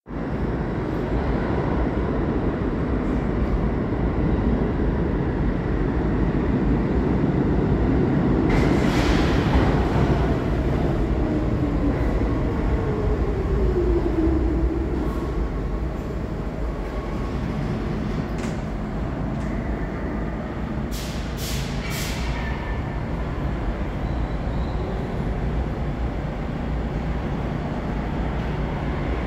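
R46 subway train pulling into the station: a steady rumble of wheels on the rails, with a whine that falls in pitch as it slows about halfway through. After that it runs quieter, with a few short, sharp sounds near the end.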